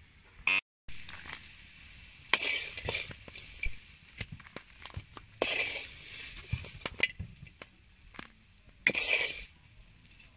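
A metal spoon scraping in a wok while fried insects are served out, three short scrapes about three seconds apart, with scattered small clicks and a light sizzle of hot oil.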